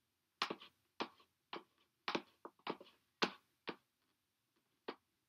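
About ten sharp clicks at uneven intervals, some in quick pairs, with quiet between them.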